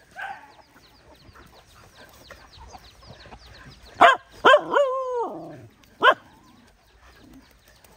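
Dogs barking: two short sharp barks about four seconds in, the second drawn out into a long falling whine, then one more bark about a second later. Faint high chirps are heard before the barks.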